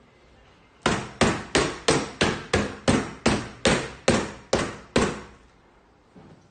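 A rifle scope banged down again and again onto a cardboard-covered chair seat in a shockproof test: about a dozen sharp knocks, roughly three a second, each dying away quickly. The knocks start about a second in and stop about a second and a half before the end.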